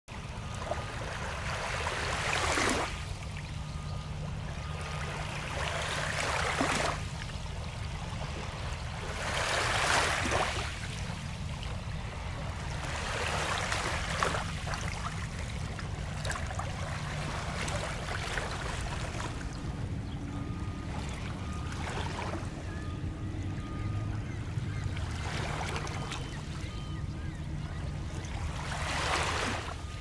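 Small Lake Michigan waves lapping onto a pebble shore, each soft wash coming every three to four seconds over a steady low rumble.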